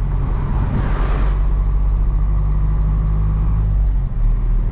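Diesel engine of a Hino cab-over box truck and its road noise heard from inside the cab while driving: a steady low drone.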